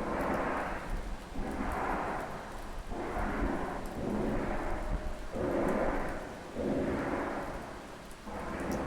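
Unexplained rumbling sky sound: a series of swelling, noisy blasts, each about a second long, repeating roughly every second and a half.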